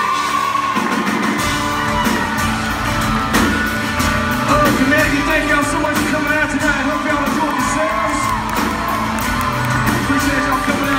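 Live country band performing, with a male lead vocal over electric guitars and drums. The bass and drums fill in about a second in, and a steady beat runs on from there.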